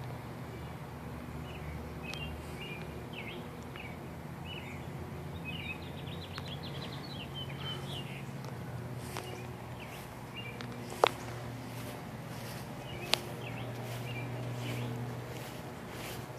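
Small birds chirping over a steady low hum, with two sharp clicks about two seconds apart in the second half.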